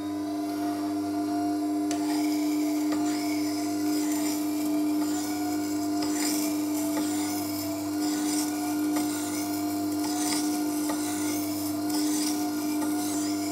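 Record Power WG250 wet stone grinder running with a steady motor hum, while a plane blade in a camber jig is passed back and forth against the wet grinding stone with an uneven scraping sound, grinding a camber onto the edge.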